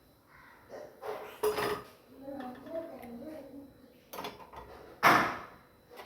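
Dishes and plates clattering as they are set into a dishwasher rack: a few separate knocks, the loudest about five seconds in.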